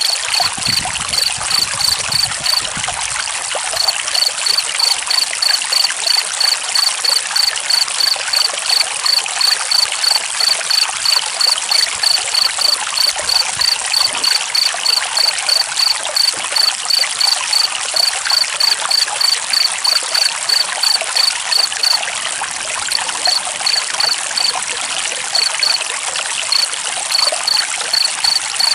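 Steady trickling water like a small stream, with a cricket chirping in a regular pulse of about two chirps a second that breaks off briefly a few times near the end.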